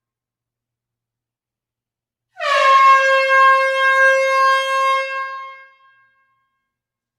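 A single long air horn blast in an enclosed hall, starting about two and a half seconds in after silence. The pitch dips briefly at the onset, then holds steady for about three seconds before fading out.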